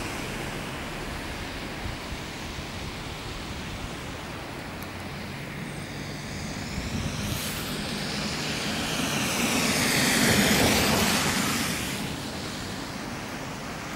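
Steady city traffic noise, with one motor vehicle approaching and passing on the road alongside, loudest about ten seconds in and then fading away.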